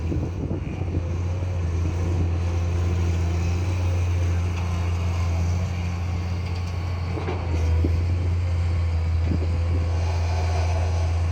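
Excavator's diesel engine running steadily with a low drone, with a few short knocks in the second half.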